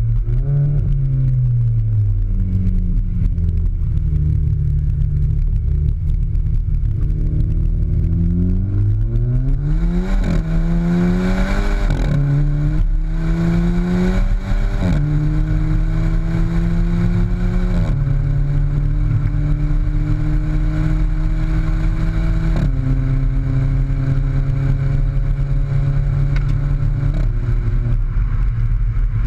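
Skoda Fabia vRS's 1.4 TSI engine, breathing through a cat-back exhaust with the centre silencer removed, pulling hard. The engine note climbs and then drops suddenly at each DSG upshift, about six times, the shifts coming quickly at first and then further apart. After the shifts the note settles at a lower cruise.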